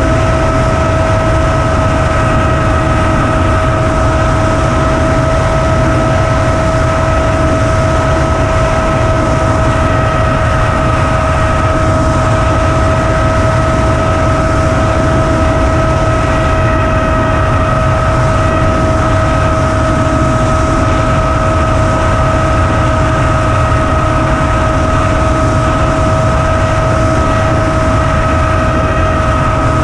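Onboard sound of a Flinch FPV flying wing in flight: a loud, even wind rush over the camera microphone with a steady, unchanging whine from the electric motor and propeller.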